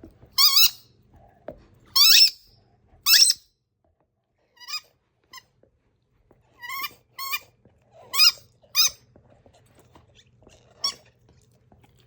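A Labrador chewing a rubber squeaky toy, squeezing out about ten short, high-pitched squeaks at irregular intervals, some loud and some faint. It is a shrill, wavering squeak, called the most obnoxious sound ever.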